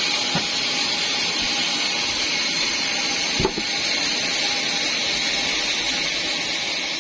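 Band sawmill running with a steady high-pitched hiss and a faint steady tone, with a single knock about halfway through.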